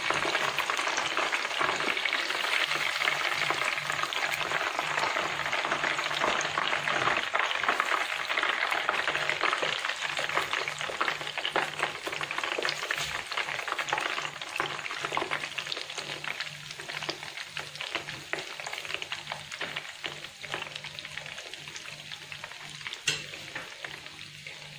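Breaded chicken schnitzel shallow-frying in hot oil in a pan: a steady dense sizzle and crackle that gradually dies down over the second half. A single sharp click near the end.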